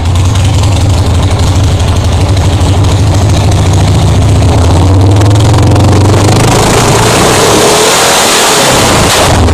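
Harley-Davidson Shovelhead V-twin engine running loud and steady just after being started. About seven seconds in, its deep low note gives way to a harsher, higher-pitched sound.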